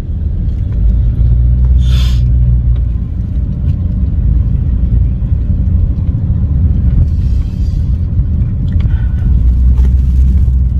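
Low, steady rumble of a car's road and engine noise heard inside the cabin while driving, with a brief rustling hiss about two seconds in.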